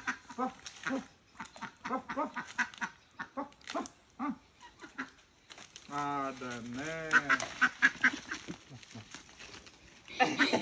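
Domestic duck quacking over and over in short, quick calls.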